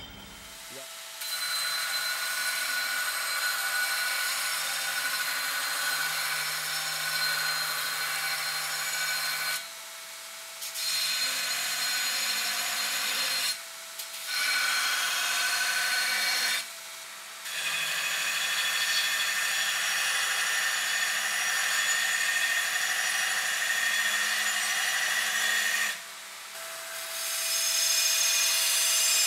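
Belt grinder running with a forged steel chopper blade pressed against the belt, hogging off steel: a steady grinding hiss with a high whine. The grinding drops out briefly four times.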